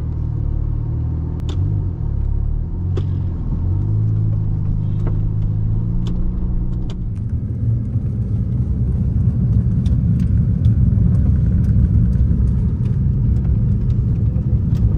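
BMW Z4 inline-six engine heard from inside the cabin, driving off at low speed with a steady low hum that shifts in pitch. About seven seconds in it turns louder and rougher, engine and road noise mixed while cruising.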